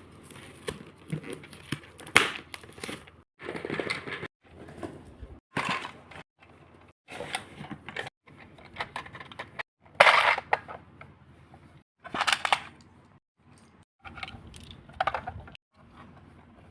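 Plastic toy fridge and its packaging being handled: crackling, rustling and clicking plastic with small knocks, in short stretches that break off abruptly.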